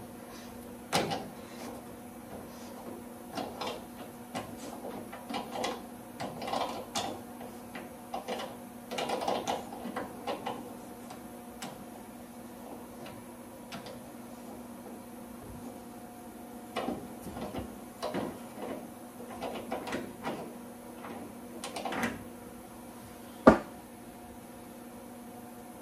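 Hand tap in a T-handle tap wrench being turned back and forth in a rusty welded-in nut, chasing the threads: irregular bursts of scraping and clicking as it cuts through the rust. A single sharp click near the end.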